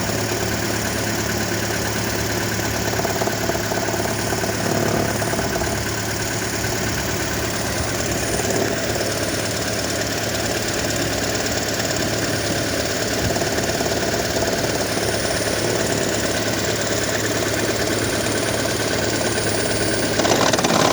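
2012 Toyota Prius's 1.8-litre four-cylinder petrol engine running with a heavy, fast rattle under its steady hum; the cause of the rattle is unknown.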